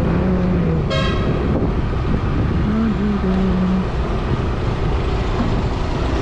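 Steady motorcycle riding noise of engine and road while travelling slowly along a rough road, with a short, sharp vehicle horn toot about a second in.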